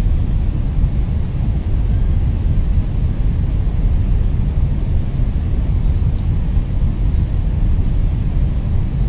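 A steady low rumbling noise with no calls or clicks in it.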